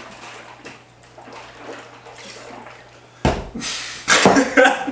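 Faint liquid sounds of water being drunk from a glass jar. About three seconds in, a sudden loud low sound breaks in, followed by bursts of laughter.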